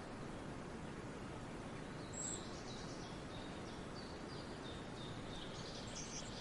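Small birds calling in short, high chirps that start about two seconds in and repeat, over a steady, faint outdoor background noise.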